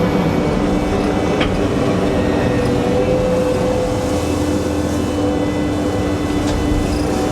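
A vehicle engine running steadily, a constant loud drone with no change in speed.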